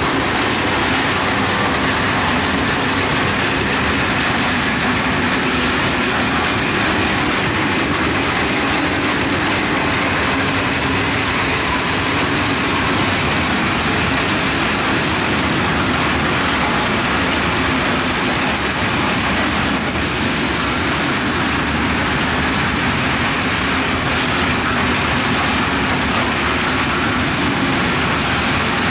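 Open-top freight wagons of a long train rolling past close by: a steady noise of wheels running on the rails, with a thin high squeal coming and going past the middle.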